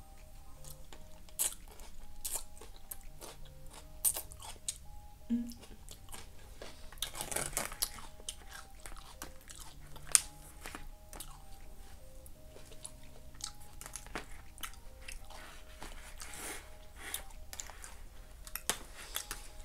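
Close-miked chewing and crunching of a Chipotle burrito bowl with lettuce, with a metal fork clicking and scraping in the aluminium foil tray. Faint background music runs underneath.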